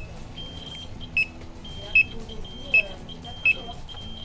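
Electronic alarm beeping: a repeating two-tone pattern, a held higher tone followed by a short, louder lower beep, coming about every three-quarters of a second.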